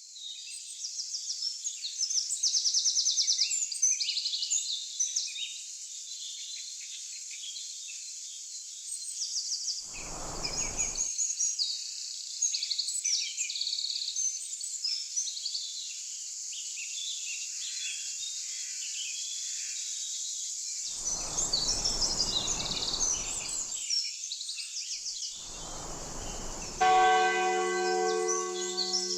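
Birds chirping and singing over a steady high hiss, broken three times by short bursts of rushing noise; near the end a church bell is struck once and keeps ringing.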